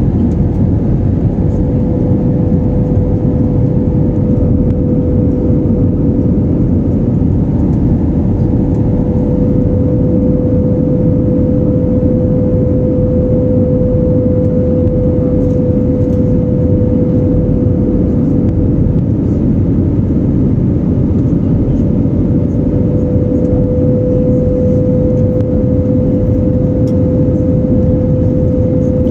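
Jet airliner cabin noise: the steady loud rush of the engines and airflow heard from a window seat over the wing, with a constant humming tone above the rumble.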